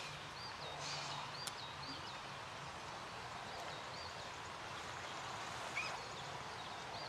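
Quiet open-country ambience: a steady low hiss, with a small bird calling short, quick chirping phrases three times. A brief soft rustle comes near the end.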